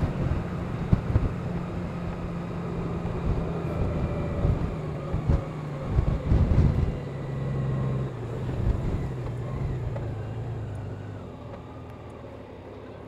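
Honda Gold Wing's flat-six engine running at road speed, with wind and road noise and a few short, louder low buffets. The engine note changes and the sound gets quieter toward the end as the bike slows behind traffic.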